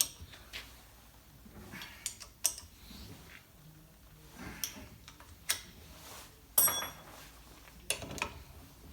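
Scattered metallic clicks and knocks of a socket wrench working on the bolts of a tractor hydraulic spool block as the two sections are tightened together. One louder clink with a short metallic ring comes a little past halfway.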